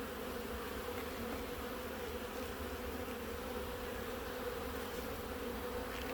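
Honey bees buzzing steadily around an open hive, a constant hum from many bees at once.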